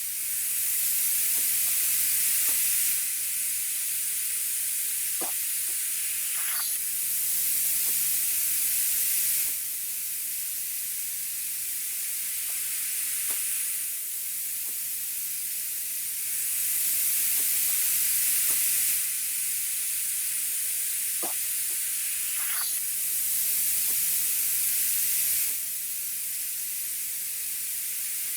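Steady hissing, strongest in the high range, given as the hiss of an iguana. It steps between louder and softer stretches every few seconds, with a few faint clicks scattered through it.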